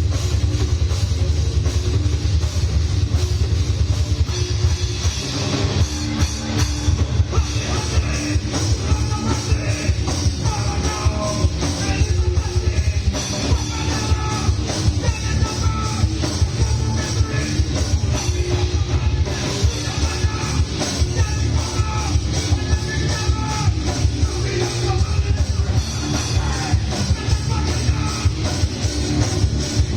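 A rock band playing live, loud and heavy: distorted electric guitars, bass and a fast drum kit, with a singer shouting the vocals from about five seconds in.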